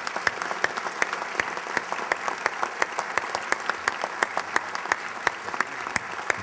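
Audience applauding: many people clapping steadily, with a few loud close claps standing out.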